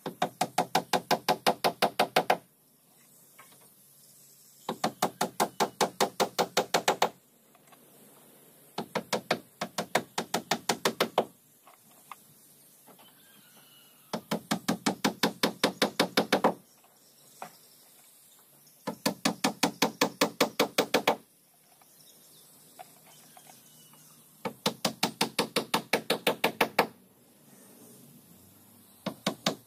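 A mallet rapping a tool held against the edge of a wooden boat's hull plank. The hits come in six quick runs, each about a dozen strikes at roughly five a second, with short pauses between them.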